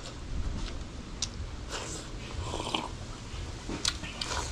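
Close-up eating sounds: chewing and slurping with a few light clicks of a spoon, over a steady low rumble of wind on the microphone.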